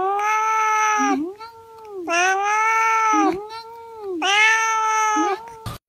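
A domestic cat giving long, drawn-out meows: three loud calls of about a second each, held at a steady pitch, with quieter, shorter calls between them.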